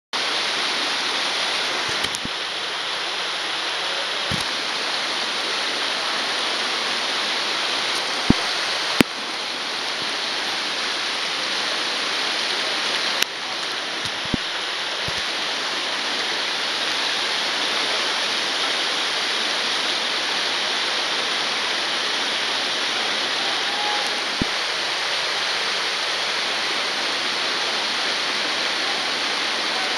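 Waterfall pouring over rock: a steady rush of falling water, with a few brief sharp knocks.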